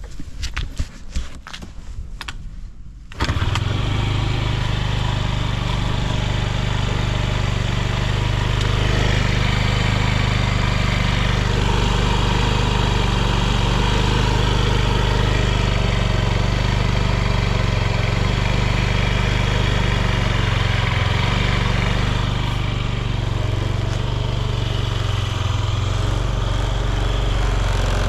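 Honda Smart Dio AF56 scooter's small carburettored 50 cc four-stroke engine being cranked, catching about three seconds in and then running steadily at idle, with no abnormal noise.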